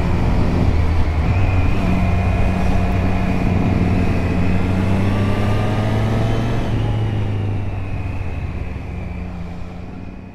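2024 Triumph Street Triple RS's 765 cc three-cylinder engine running steadily under way, with wind noise, heard through a mic inside the rider's helmet; the engine pitch shifts a little and the sound fades out near the end.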